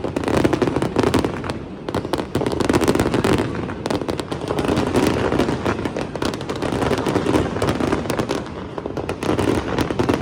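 Fireworks going off in a dense, continuous barrage of bangs and crackles, easing briefly about two seconds in and again near the end.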